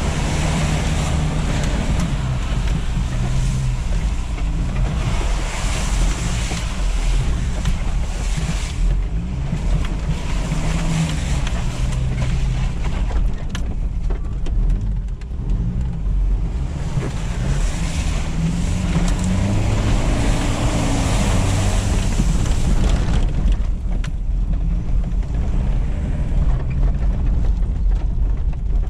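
Toyota Land Cruiser KZJ78's 1KZ-T 3.0-litre turbo diesel engine running under load, heard from inside the cab, its pitch rising and falling as the revs change. Tyres churn and splash through wet mud and puddles, a rushing noise that swells at times.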